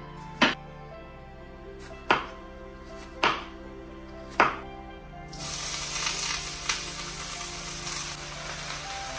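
A kitchen knife striking a wooden chopping board four times, about a second apart, as bitter gourd is sliced. From about five seconds in, a steady sizzle of vegetables frying in a pan.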